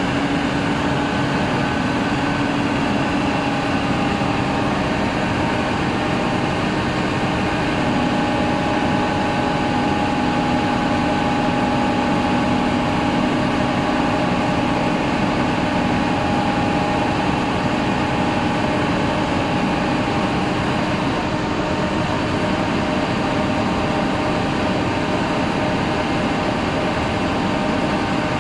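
Forklift's engine and hydraulics running steadily as its tyre handler clamp rotates, with a few steady whining tones over the engine noise that shift pitch partway through.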